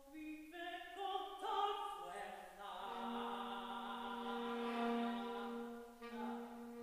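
Contemporary classical duet for female voice and saxophone: a line of held notes stepping upward, then long sustained tones from about three seconds in.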